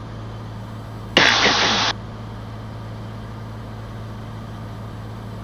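Steady low drone of a Cirrus SR20's engine and propeller in flight, heard through the cockpit audio feed. About a second in comes a brief, clipped burst of voice over the intercom or radio.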